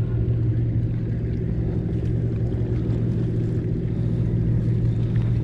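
An engine running steadily with an even, low hum.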